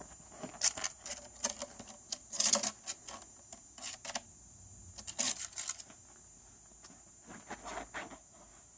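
Soft, irregular rustling and scuffling from sleepy ferrets stirring, in short bursts a second or so apart, two of them longer at about two and a half and five seconds in.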